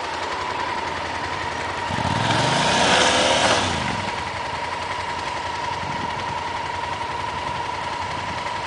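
Motorcycle engine running, with one swell about two seconds in where its pitch climbs and then falls away as it is revved or ridden past, loudest around three seconds in. Under it is a steady engine hum.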